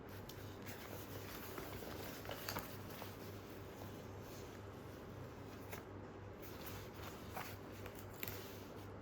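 Faint rustling and light taps from a ripstop Robic nylon shoe bag being handled, over a low steady hum.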